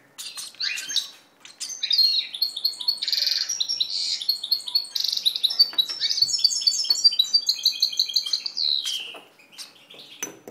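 High-pitched begging chirps from a hand-fed baby parrot: a rapid, continuous run of short calls that ends with a single falling note near the end.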